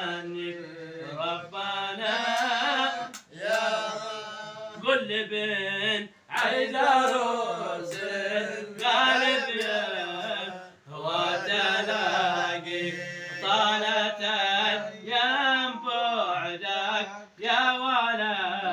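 Male voice singing an Arabic qasidah in long, ornamented phrases, with short breaks for breath.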